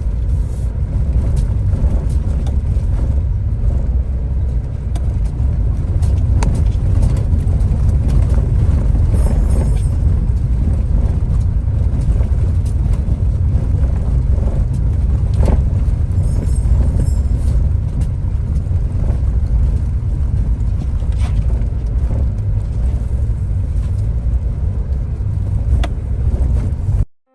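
Car on the move: a steady low rumble of road and engine noise, with a few faint clicks.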